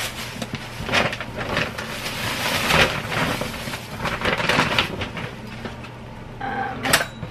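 Plastic grocery bags and food packaging rustling and crinkling as items are pulled out and handled, with a few light knocks.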